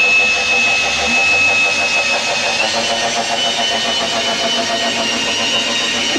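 Cordless drill running steadily, driving the threaded screw of a race-car lift stand, with a constant whine that steps up in pitch about two and a half seconds in.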